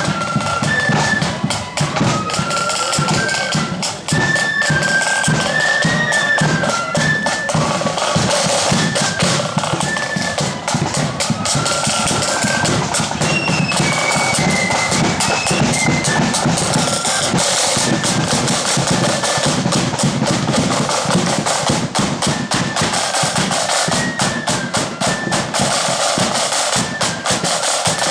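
Marching flute band playing a tune, flutes carrying a lively stepping melody over the steady beat of side drums and bass drums. The drums come to the fore in the second half.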